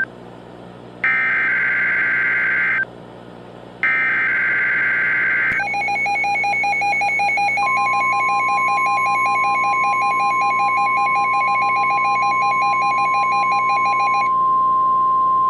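Emergency Alert System broadcast signal. First come two raspy digital data bursts of the SAME header, each about two seconds long with a second's pause between them. Then the attention alarm: a fast pulsing tone starts, a steady tone joins about two seconds later, and the pulsing stops near the end while the steady tone holds.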